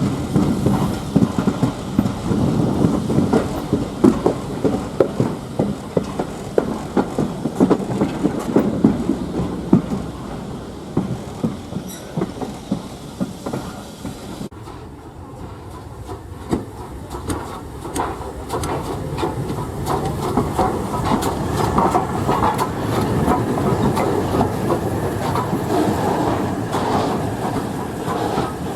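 A train's wheels rattling and clicking over the rail joints as it rolls past on a heritage railway line. The sound eases off around the middle and builds again towards the end.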